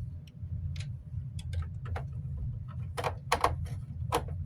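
Irregular clicks and taps of a screwdriver and plastic fan housing as screws are driven back into the casing, louder for a moment about three seconds in, over a steady low hum.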